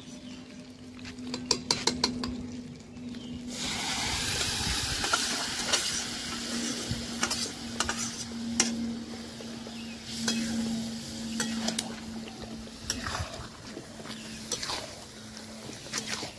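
A metal spatula knocks a few times against a pan, then about four seconds in a loud sizzle starts as steamed cabbage, tipped in with its cooking water, hits hot oil and fried potatoes in a kadai. The sizzling goes on with the spatula scraping and clinking against the pan as it is stirred.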